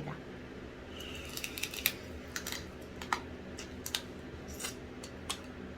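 Close-miked eating sounds: a string of irregular sharp wet mouth clicks and smacks, with short slurping bursts, while eating soy-sauce marinated crab.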